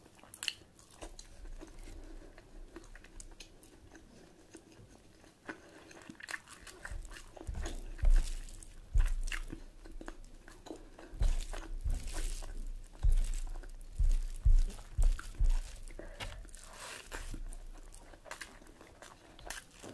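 Close-up eating sounds: a person chewing and biting food, with wet clicks and crunching, and repeated dull low thumps from about a third of the way in.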